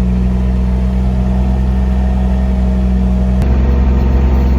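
Tractor engine running steadily at a constant speed. The tone changes abruptly about three and a half seconds in.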